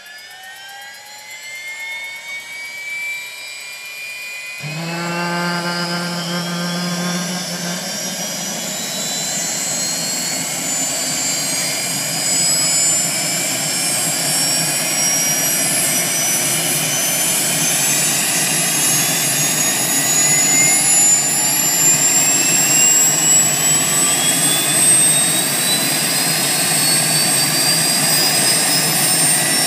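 Bell 206 JetRanger's turbine engine starting up: a whine climbs in pitch, a sudden rush of noise with a low hum comes in about five seconds in as the engine lights, and the turbine whine keeps rising and growing louder as the rotor spins up.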